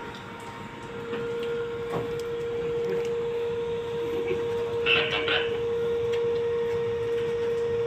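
Crane hoist whining steadily as it lifts a heavy cooling tower off its base, the whine getting louder about a second in as the load comes up. A brief sharp noise comes about five seconds in.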